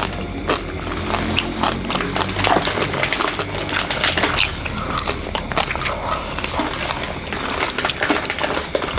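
Eating sounds: irregular clicking and smacking of chewing, over a steady low hum.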